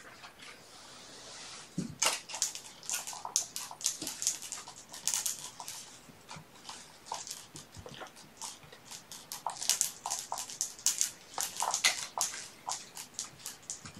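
Kittens playing: a busy, uneven run of scratchy rustles and light clicks from claws and toys, with a few short mews among them.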